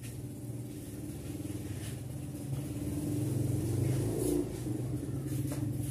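A low, steady motor hum that grows louder about three seconds in and eases off after about four seconds, with a few light clicks.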